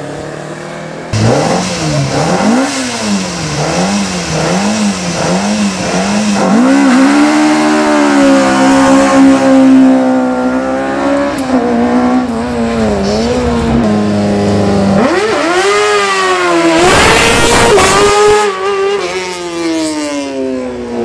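Rally cars' engines at full throttle in a hillclimb, several cars one after another. Early on the pitch swings quickly up and down as the revs rise and drop through the gears and bends. Later come long rising sweeps, and a short loud rushing burst a few seconds before the end.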